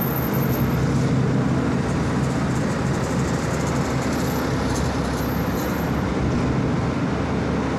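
Steady rumble of road traffic and vehicles.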